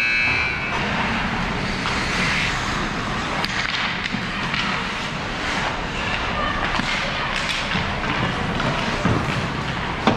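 Ice hockey rink buzzer ending just under a second in, then game play on the ice: skates scraping, sticks and puck clattering, and scattered knocks, with a sharp hit near the end.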